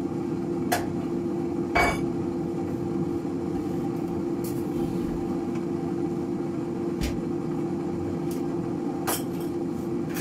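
Princess digital air fryer running at 160 °C, its fan giving a steady hum with one constant tone. A few light clicks or knocks sound through it.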